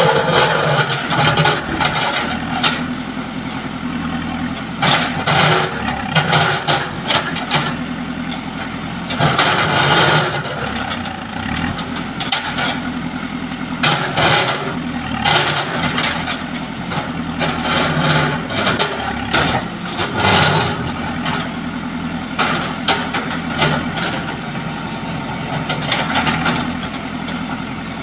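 JCB backhoe loader's diesel engine running steadily under hydraulic load as its backhoe bucket works through concrete paving slabs, with several louder bursts of scraping and crunching from the breaking concrete.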